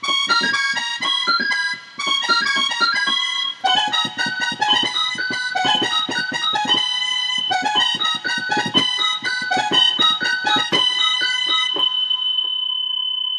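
Instrumental music: a quick, staccato keyboard melody over a low, thudding beat, with brief breaks about two and four seconds in. It thins to one held high note near the end.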